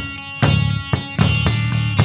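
Home-recorded rock band music: guitar chords ringing over drum kit hits.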